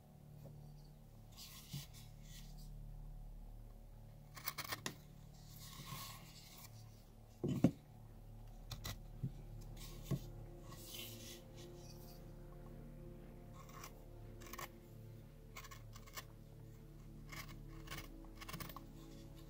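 Carving gouge and knife slicing cottonwood bark in short scraping cuts, a dozen or so scattered strokes, with a sharper knock about seven and a half seconds in. A steady low hum runs underneath.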